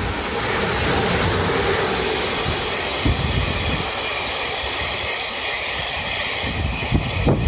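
Freight train hauled by an EH500 electric locomotive passing at speed right alongside: the steady rumble and rush of its freight wagons rolling by, with two sharp clacks, one about three seconds in and one near the end.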